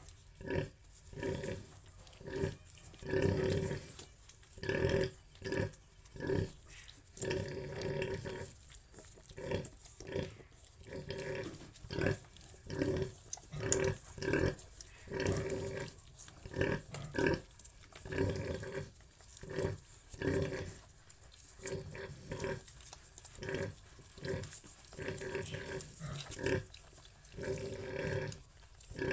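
Pig grunting in a steady run of short, low grunts, about two a second.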